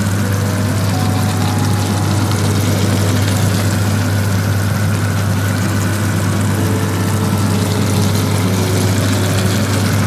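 Ground beef and red onion sizzling and crackling in a frying pan while a wooden spatula stirs them, over a steady low hum.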